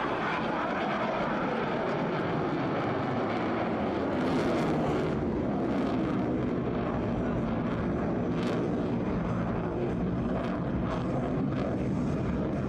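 F-22 Raptor's twin Pratt & Whitney F119 turbofan engines, a steady jet engine noise as the fighter climbs steeply away, swelling slightly about four seconds in.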